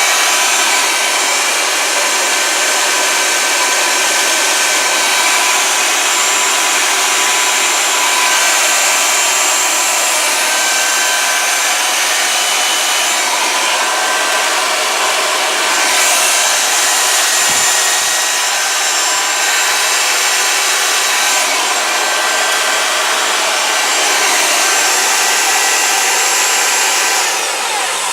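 Electric belt sander running steadily, a motor whine over the rasp of the sanding belt, as it rounds over the edge of a wooden stool leg.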